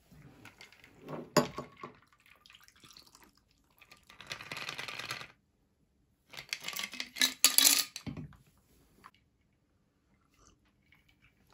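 A shaken cocktail poured from a stainless steel cocktail shaker over ice in a glass. Ice clinks against glass and metal, a pour runs for a second or so, and a louder clatter of ice and steel follows just past the middle.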